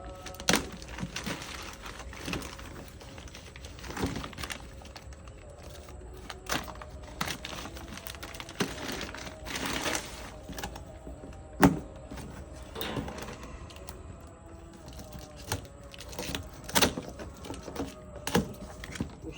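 Irregular knocks, clicks and rustles of a pressure washer being unboxed, its packaging and plastic parts handled by hand. One sharper knock comes about halfway through.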